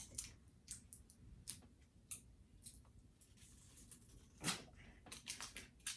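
Faint, scattered clicks and crackles of plastic toy packaging being handled and pulled open, with a louder knock about four and a half seconds in and a few quick clicks just after.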